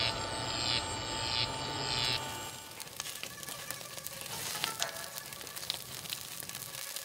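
A steady mechanical whir with a pulse repeating about twice a second runs for the first two seconds, then cuts off. After that, pork belly on skewers sizzles over glowing charcoal, with a steady crackle and scattered sharp pops as fat drips onto the coals.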